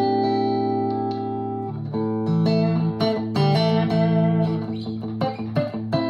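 2023 PRS Special Semi-Hollow electric guitar, plugged into an amp, being played: a chord rings for almost two seconds, then a run of picked chords and single notes follows.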